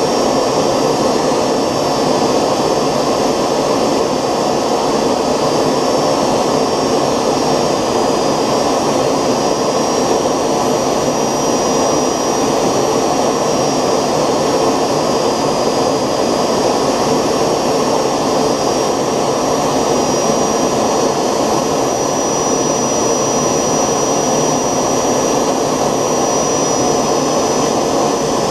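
3D-printed model jet engine running steadily: an even rushing of air with a thin high whine above it that drifts slightly higher in pitch toward the end.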